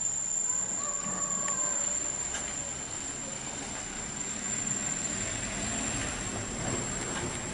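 Outdoor ambience: a steady, high-pitched insect drone over a low background rumble.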